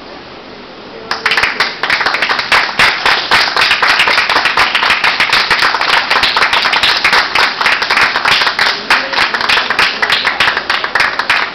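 Applause: hands clapping rapidly and loudly close by, starting about a second in and keeping on.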